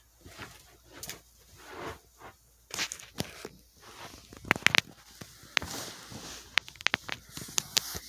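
Footsteps and camera handling noise: rustling against clothing and an irregular run of sharp clicks and knocks as the camera is bumped and moved, the loudest about halfway through and again near the end.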